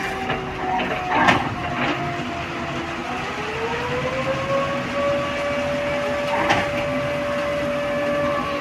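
Hydraulic truck tippler's pump unit whining steadily as the platform tilts a loaded truck. Its pitch sags slightly, then rises over about two seconds near the middle and holds higher as the load on the pump changes. A few sharp metallic knocks sound over it, the loudest about a second in and again past six seconds.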